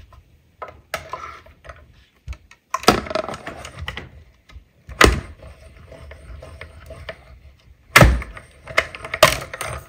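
Hand-cranked manual die-cutting machine pressing a plate-and-die sandwich through its rollers, with a grinding crunch broken by several sharp cracks and knocks, the loudest about five and eight seconds in. The sound comes from the steel dies cutting through the cardstock under the rollers' pressure.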